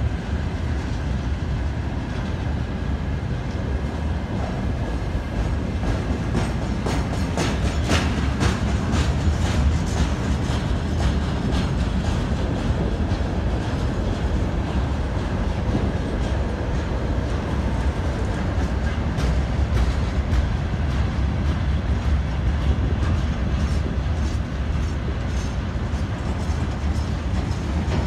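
Freight train rolling past behind a VL10K electric locomotive: a steady rumble of the wagons' wheels on the rails, with stretches of rapid clickety-clack as wheels cross rail joints, strongest about eight to ten seconds in and again later on.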